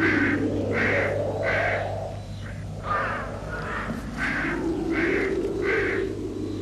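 Crows cawing over and over, a harsh call roughly every two-thirds of a second. Beneath them are a lower, drawn-out wavering sound and a steady low hum.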